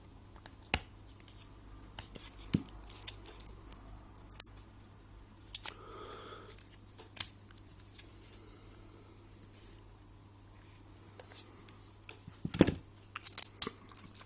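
Light plastic clicks, scrapes and rustles of hands handling an opened smartphone with its back cover off and its removable battery taped in, with a denser run of clicks near the end.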